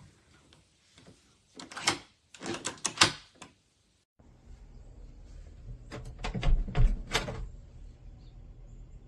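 A door and its hardware being handled: a run of sharp clicks and knocks about two seconds in and again near three seconds. After a sudden cut, a low hum comes in with more clicks around six to seven seconds.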